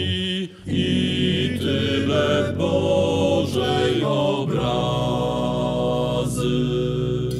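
Male vocal group singing a slow, chant-like harmony with low held notes, broken off briefly about half a second in.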